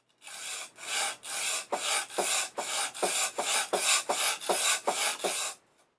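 A wide A2-steel blade scraping back and forth on a sharpening stone in quick rasping strokes, about two or three a second, roughly a dozen in all. It stops about half a second before the end. The blade is being rocked up to about 25 degrees at the end of each stroke to grind a convex primary bevel on a freshly dulled edge.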